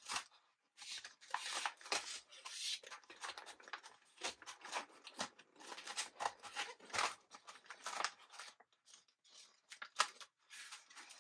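Paper liner being peeled off a strip of double-sided adhesive, then the glossy photo-paper wrapper and the chip bag inside it rustling and crinkling as the top is folded over and pressed down. Short, irregular rasps and crinkles throughout.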